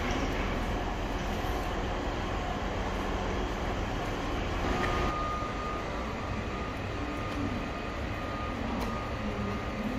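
Steady low rumble of a covered railway station concourse, with train and hall noise and no speech. A faint steady high tone comes in about halfway through and holds.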